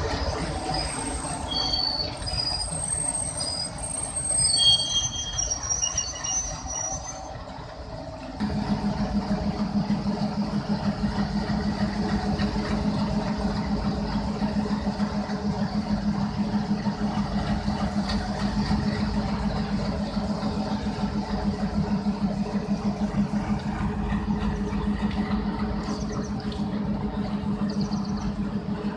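Train rolling with short, high-pitched wheel squeals for the first eight seconds or so. Then the twin WDG3A Alco diesel locomotives' engines come in suddenly and louder, a steady, fast chugging that carries on to the end.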